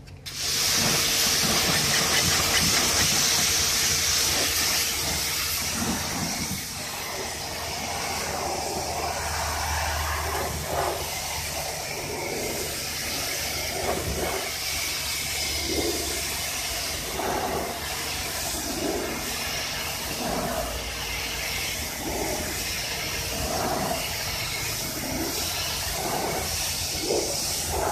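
Pressure washer jet spraying water against a car's sill and wheel, rinsing off snow foam: a loud, steady hiss with splashing that shifts as the spray moves, and a steady hum under it. The spray starts abruptly at the beginning.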